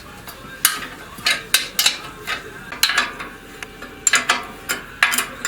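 Hand tools clinking against metal as the muffler fasteners on a walk-behind tractor engine are worked loose: about a dozen sharp, irregularly spaced metallic clicks.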